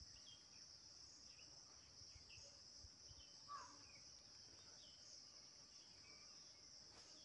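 Faint, steady, high-pitched drone of an insect chorus, with scattered short faint chirps over it.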